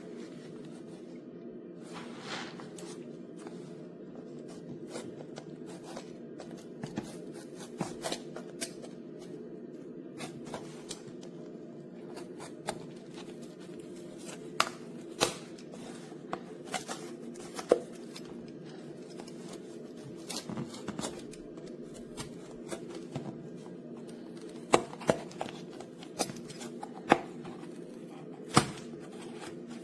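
Scattered sharp clicks and crackles, like objects being handled, over a steady low hum. The clicks come more often and louder in the second half.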